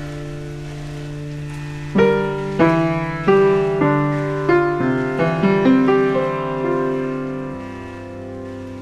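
Ambient instrumental piano music: a held chord, then about two seconds in a string of single notes struck roughly every half second, which ring on and slowly fade.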